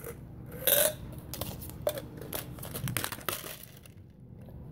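Plastic candy packaging crinkling and crackling as it is handled and opened, with a loud crackle just under a second in.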